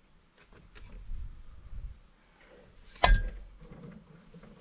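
Low knocking and shuffling of parts being handled, then a single sharp metallic clank with a short ring about three seconds in, as tractor implement hitch parts are worked loose; crickets chirring in the background.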